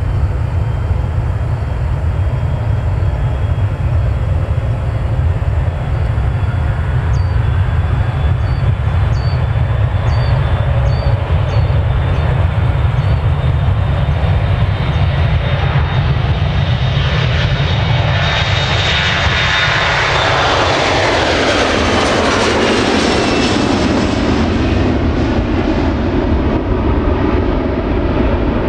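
Boeing 737-500's twin CFM56-3 turbofan engines at takeoff power during the takeoff roll: a steady loud rumble with a high engine whine. About eighteen seconds in, the jet passes close and the sound swells sharply, then the pitch falls as it climbs away.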